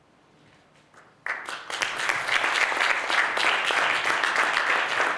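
Audience applauding, breaking out suddenly about a second in after a moment of near silence.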